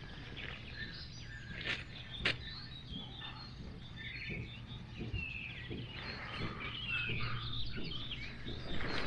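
Small birds chirping and twittering, with a steady low hum underneath and two sharp clicks about two seconds in.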